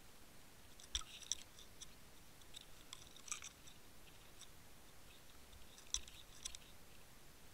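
Sharp clicks and crackling ticks picked up by an underwater camera over faint hiss. They come in small clusters: about a second in, around three seconds in, and again about six seconds in.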